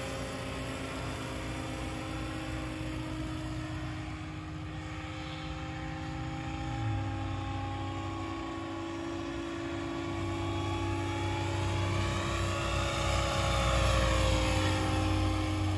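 Radio-controlled scale Huey helicopter in flight: a steady whine of its motor and rotors over a pulsing rotor chop. It grows louder as the helicopter comes past low about 13 seconds in, and its pitch drops as it goes by.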